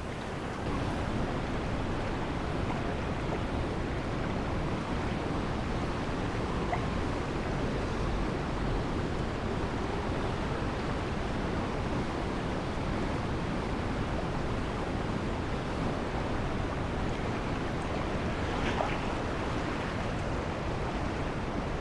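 Steady rush of fast-flowing river current around a wading angler.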